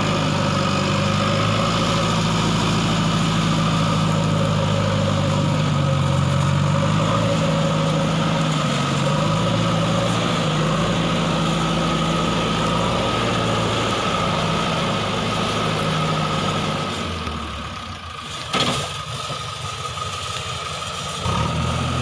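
Diesel engine of a JCB backhoe loader running steadily at a low, even pitch. About three-quarters through the engine sound drops away with a single sharp click, then comes back in shortly before the end.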